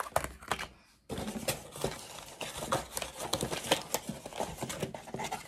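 Plastic lure packaging and a cardboard box being handled and rummaged through: crinkling and rustling, with a few clicks at first and then a dense run of small crackles from about a second in.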